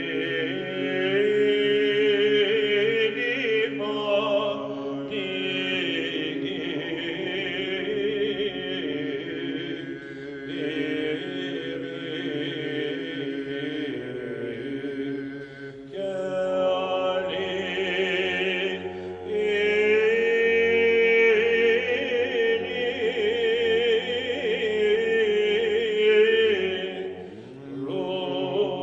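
Byzantine chant sung by a small group of men: a lead chanter's ornamented melody over a held low drone (the ison) from the others, in long phrases with brief breaks between them.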